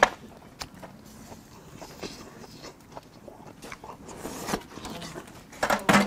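Eating grilled oysters at a wood-fire grill: scattered sharp clicks and knocks of oyster shells and utensils, with a short rustle about four seconds in and a cluster of louder clicks near the end.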